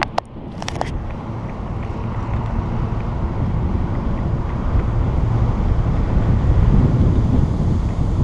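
Wind buffeting the camera's microphone as it moves along, a steady low rumble; two or three sharp clicks in the first second as fingers handle the camera.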